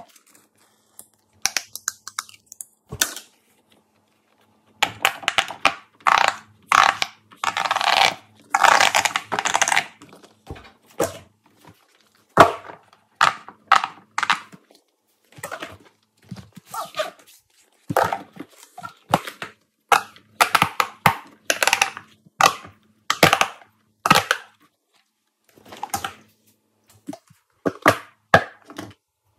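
Giant silicone pop-it fidget toys being handled, slid and stacked on a tabletop: irregular short rubbing and scraping noises, densest from about five to ten seconds in.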